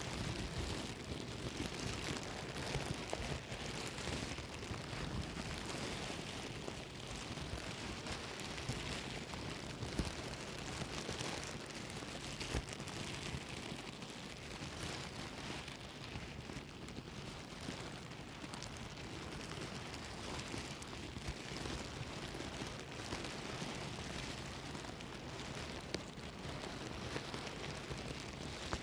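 Plastic bag being rustled and crumpled continuously, a steady crackling full of small crinkles.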